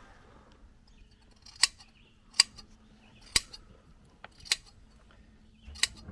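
Hand blade shears snipping wool from a sheep's neck: five sharp snips spaced roughly a second apart.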